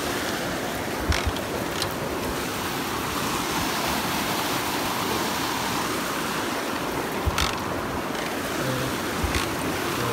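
Steady rush of a rocky stream's fast-flowing water, with a few short, sharp knocks.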